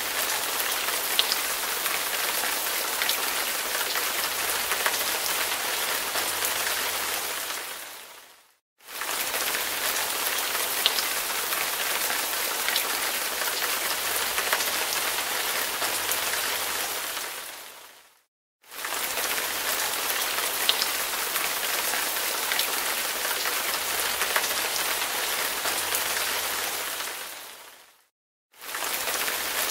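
Steady rain hiss with scattered ticks of single drops. It comes in three stretches of about ten seconds, each fading out into a brief silence before the next begins abruptly.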